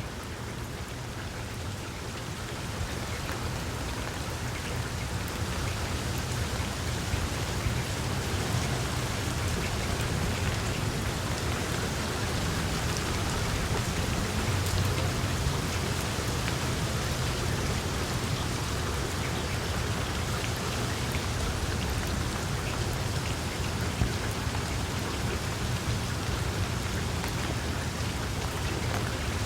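Steady rain falling on tree leaves, an even patter of drops with a low rumble beneath, growing a little heavier over the first several seconds.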